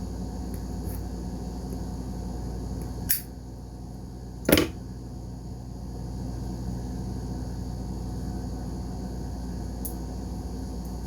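Zippo lighter with a pipe-lighter insert being lit: a sharp metal click, then about a second and a half later a louder snap as it is struck. A steady low hum runs underneath.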